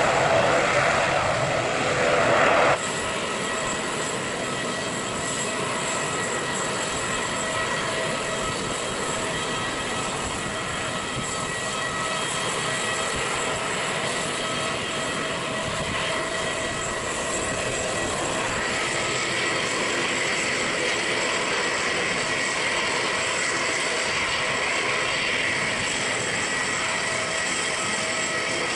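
ATR 72-600 turboprop engines running on the ground: a steady whine made of several held tones over a rushing hiss. The sound drops abruptly about three seconds in, and the hiss grows slightly brighter about two-thirds of the way through.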